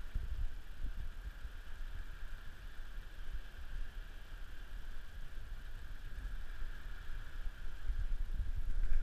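Wind buffeting the microphone in irregular low gusts that get stronger near the end, over a steady high-pitched hiss.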